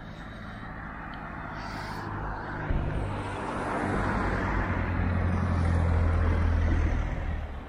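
Street traffic: a car driving past close by, its tyre and engine noise swelling over several seconds with a steady low hum, then cutting off suddenly near the end.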